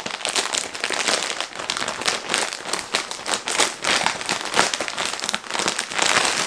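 Clear plastic packaging bag crinkling and crackling as it is pulled open and handled, a continuous run of sharp crackles.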